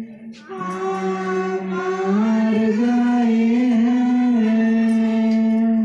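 A slow devotional song sung in long, drawn-out notes that shift gently in pitch, with a short pause for breath just after the start and another at the end.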